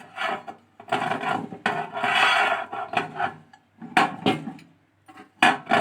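A microwave oven's glass turntable plate and its roller ring being lifted and handled, with scraping and rubbing against the oven floor, then a couple of sharp clicks of the parts knocking together.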